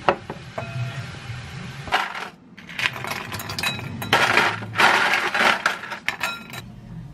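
Ice cubes clattering and clinking as they are scooped from a plastic container and dropped into a stemless glass. The busiest clatter comes about two seconds in and again from about four to five and a half seconds.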